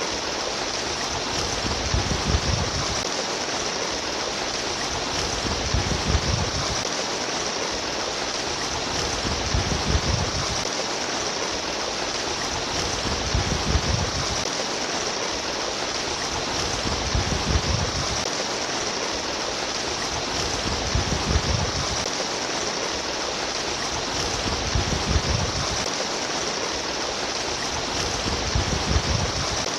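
Flowing stream water trickling and rushing steadily, with a low swell that comes back about every four seconds.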